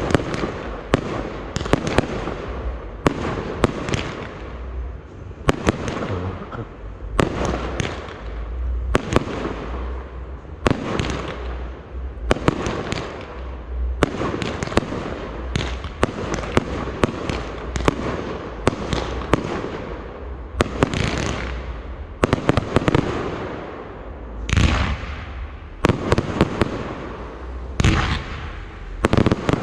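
Aerial fireworks display: shells bursting one after another, about one or two sharp bangs a second, each trailing off into crackle and echo, over a continuous low rumble.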